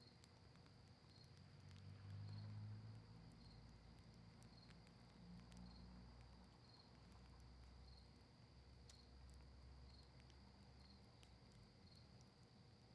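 Faint campfire of cedar leaves and maple wood, crackling with sparse sharp pops. Under it runs a steady high insect trill, likely a cricket, pulsing about once a second. A low rumble swells briefly about two seconds in.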